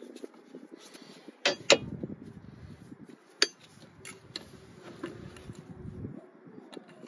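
Sharp metal clinks of a 19 mm offset box-end wrench knocking against the engine and settling onto the hex of a newly threaded coolant temperature sensor, over the soft rustle of gloved hands working. The loudest are two quick clinks about a second and a half in, with a few lighter ones a few seconds later.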